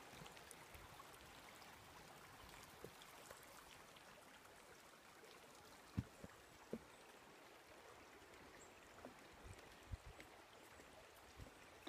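Faint steady rush of a small forest stream, with a few soft thumps of footsteps on a wooden boardwalk about halfway through and again near the end.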